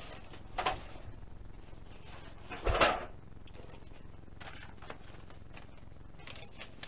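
Paper instruction sheets and plastic-bagged kit parts rustling as they are handled in a cardboard box: a few short rustles, the loudest about three seconds in.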